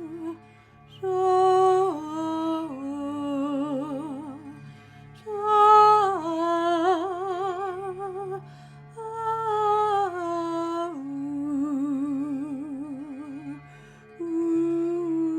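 Wordless vocal humming in slow phrases of held notes, each phrase stepping down in pitch with a wavering vibrato, four phrases in all, over a steady low drone from a monochord.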